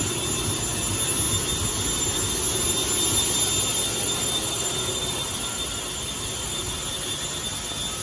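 Steady machinery noise in an industrial building: a broad rumble and hiss with faint high whines running through it.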